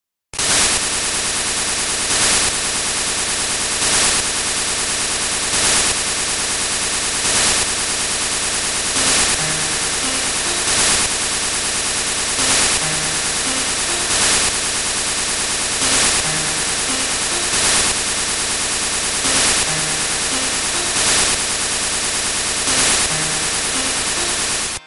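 Harsh noise music: a dense, loud wall of static that swells about every one and three-quarter seconds, with a faint low tone pulsing underneath. It cuts off abruptly near the end.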